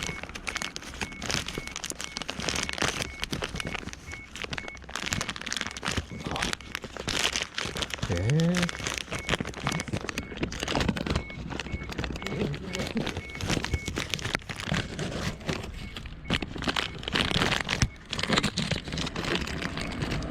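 Crinkling and rustling, like paper or plastic being handled, with a faint high beep repeating evenly through parts of it.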